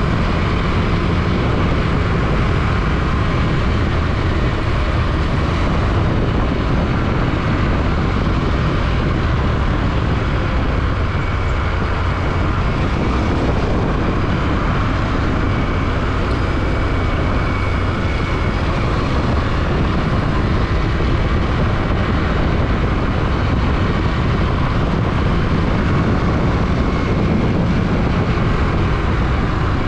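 Yamaha WR155 motorcycle's single-cylinder engine running steadily while riding, with a heavy, even rush of wind on the microphone.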